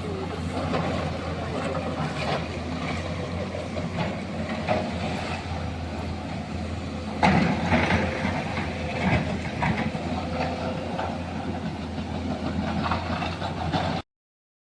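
Excavator's diesel engine running steadily with irregular metallic clattering over it, louder for a few seconds about halfway through; the sound cuts off abruptly near the end.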